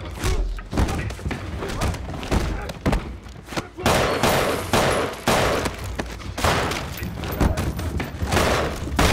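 Film fight sound effects of a close-quarters hand-to-hand brawl: a rapid string of punches and blows landing, with thuds and scuffling that grow denser about four seconds in.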